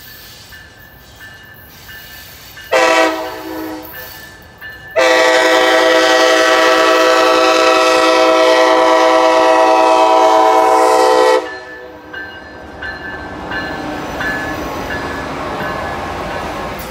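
Amtrak Siemens ALC-42 Charger diesel locomotive's air horn, sounded for the grade crossing: a short blast about three seconds in, then a long blast of about six seconds. After the horn stops, the rumble and wheel noise of the passing train rise.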